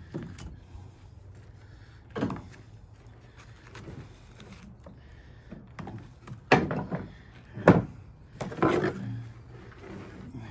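Thick copper windings being worked out of a welder's transformer: a few sharp metal clunks and scrapes, the loudest about three quarters of the way through, over a low hum.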